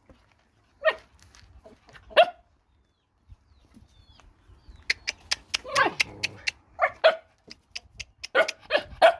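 Dogs barking in short single barks: two a second or so apart, then more coming closer together in the second half. A run of quick, sharp clicks falls in the middle.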